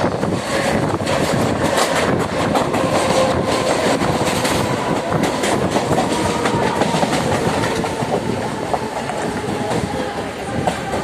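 Mumbai suburban local train running on the Harbour line, its wheels clattering over the rail joints with a steady rumble. A faint whine falls slowly in pitch.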